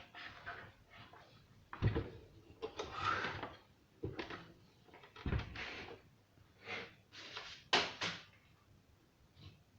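Handling noises from opening an old radio with a wooden cabinet and aluminium front: irregular clicks, knocks and scrapes, with a couple of dull thumps and one sharper knock.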